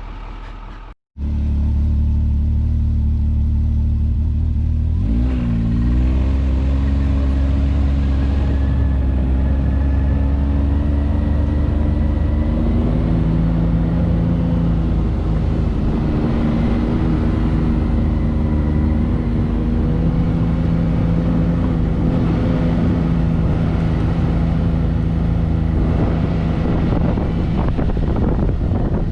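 Vehicle engine running steadily while driving, its pitch dipping and rising about five seconds in, then climbing slowly with a couple of steps in pitch.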